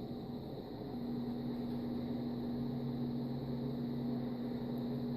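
A steady low hum in two tones, the higher one growing stronger about a second in.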